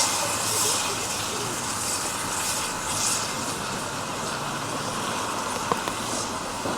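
Steam locomotive hissing steadily, with soft exhaust puffs coming irregularly about every second.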